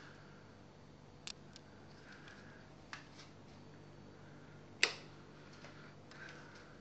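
A few faint, sharp taps and scratches from a cat moving inside a cardboard box, the loudest about five seconds in, over a steady low hum.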